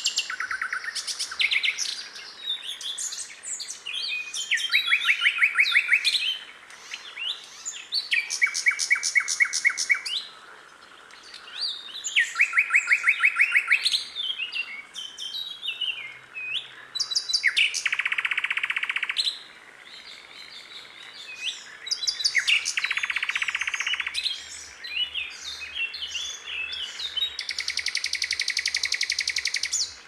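A songbird singing a varied song: phrases of fast repeated notes, short chirps and whistles between them, and two harsher buzzing phrases past the middle.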